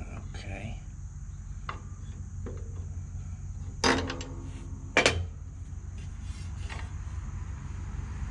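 Metal clinks and rattles from a riding mower's steel deck-lift bracket and linkage being worked loose by hand, with two sharp clanks about four and five seconds in. A steady high insect drone, like crickets, runs behind it.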